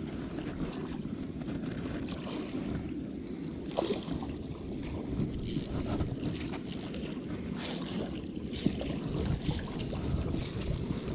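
Steady low rumble of wind on the microphone, with scattered faint clicks and rustles from the camera being moved.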